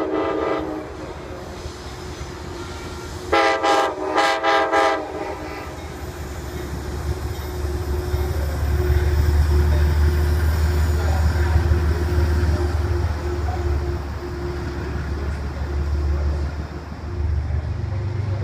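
Multi-chime air horn of a Metro-North GE Genesis diesel locomotive: one blast ends just after the start, then three short blasts come about three and a half seconds in. From about 8 s the low rumble of the diesel locomotive and its coaches passing on the elevated track builds and holds steady.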